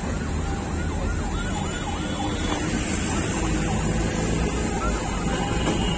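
A siren yelping in quick rising-and-falling whoops, about four a second, for the first two and a half seconds, over a steady low rumble of street traffic.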